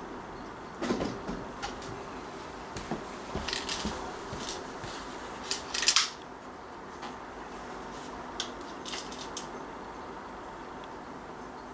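Scattered small clicks and light metallic knocks of a spring-powered BB pistol being handled between shots, the loudest cluster about six seconds in.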